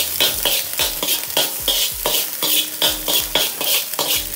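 Metal spatula scraping and knocking against a Chinese wok in quick strokes, about three a second, over the sizzle of garlic, green chilli and scrambled egg sautéing in hot oil.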